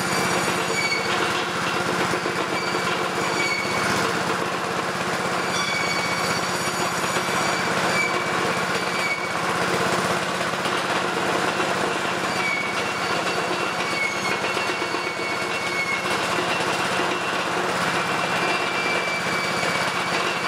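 Honda single-cylinder petrol engine running steadily, belt-driving a Fisher & Paykel Smart Drive washing-machine motor as a generator. A faint high whine over it wavers in pitch and comes and goes.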